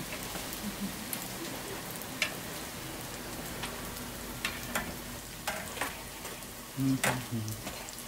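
Hotteok frying in hot oil on a griddle, a steady sizzle, with a few sharp clicks of metal tongs as the pancakes are lifted onto a perforated steel draining rack. A brief low sound about seven seconds in is the loudest moment.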